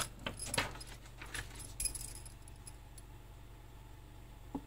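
Several light metallic clicks and clinks in the first two seconds and one more near the end, from a small screwdriver handled against a hand-built circuit board and its trimmer potentiometers. A faint low steady hum lies underneath.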